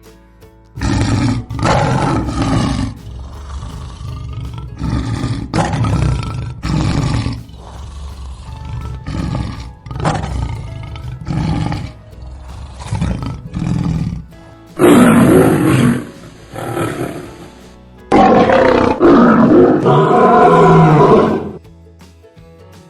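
Lions roaring: a run of short roars one after another, then two long, loud roars in the second half.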